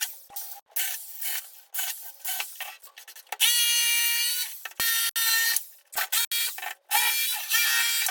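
Power tools working wood in a run of short, choppy bursts, each a steady whine that starts and cuts off abruptly.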